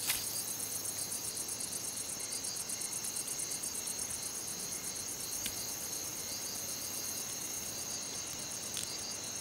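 Night insect chorus: crickets trilling steadily, a high, fast, even pulsing.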